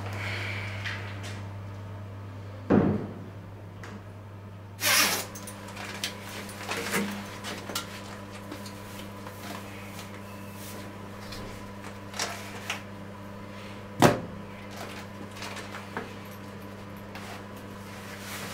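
Toilet cubicle door shutting with a thump about three seconds in, then clothing rustling and scattered small clicks and knocks, with one sharp click about fourteen seconds in, over a steady low hum.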